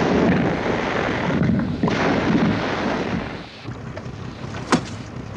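Heavy splashing and rushing water as a barrel, dragged by the shark, surges up through the sea surface in several surges over about three seconds. It then falls quieter, with a single sharp knock near the end.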